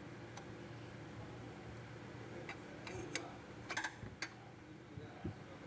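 Faint scattered clicks and light metal taps as a serpentine belt is worked onto the engine pulleys and the tensioner is levered with a pipe. A quick cluster of clicks comes about three and a half seconds in, over a low steady background hum.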